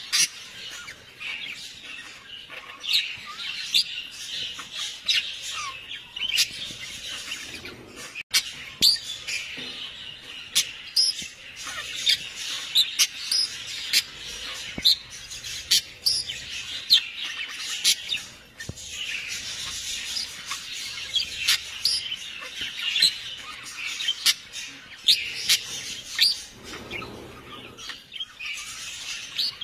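Many birds chirping and squawking together in a dense, continuous chatter, with sharp short calls all through.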